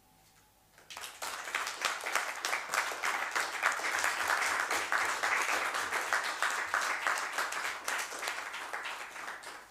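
Small audience applauding, starting about a second in and fading away near the end.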